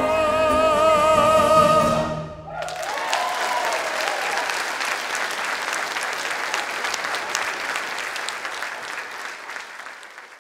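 A male tenor holds the final note of a song with vibrato over the accompaniment. The music stops about two and a half seconds in, and audience applause follows and fades out near the end.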